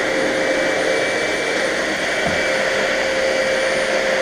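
Vacuum cleaner running steadily: a steady motor whine over an even rush of air.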